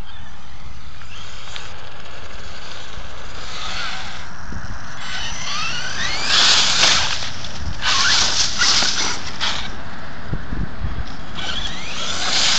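Electric motor of an HPI Savage Flux HP RC truck whining in rising sweeps as it accelerates, several times. Between the sweeps come loud hissing bursts of the tyres scrabbling and spraying gravel.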